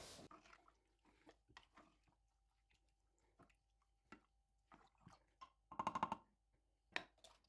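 Faint, wet clicks and scrapes of a spoon stirring chopped beef with chili powder in a pressure cooker, with a quicker run of several strokes about six seconds in.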